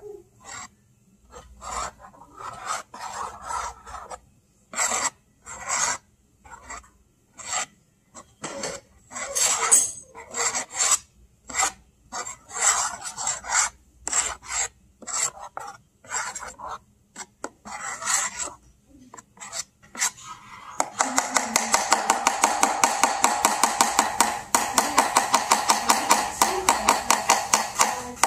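A metal spoon scraping and rubbing along a baking pan in irregular strokes as peanut butter and jelly are swirled through pancake batter. About twenty seconds in, a faster, steady rasping rub takes over.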